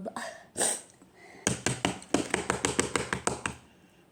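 A short hiss, then a quick run of light taps or clicks, about ten a second for two seconds.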